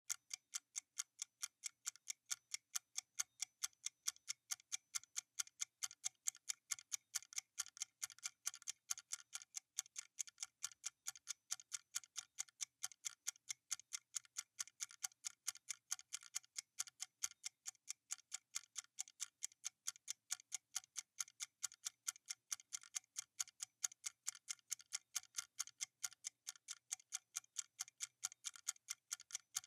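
Stopwatch ticking steadily, about two to three ticks a second, alternating louder and softer ticks.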